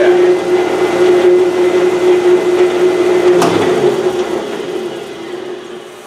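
Rikon 12-210H helical-head jointer/planer running with a steady hum, its infeed rollers engaged. A click comes about three and a half seconds in, after which the hum stops and the machine winds down, fading steadily.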